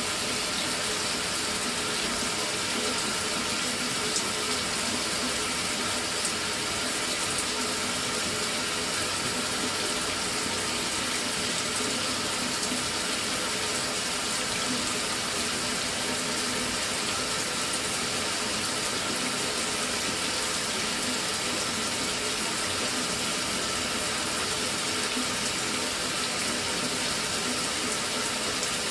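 Mira electric shower spraying water in a steady, unbroken flow that does not cut out, with its new solenoid valve fitted.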